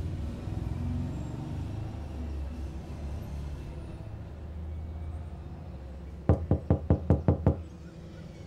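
A low, steady rumble, then a rapid run of about seven loud, sharp knocks in just over a second, about six seconds in.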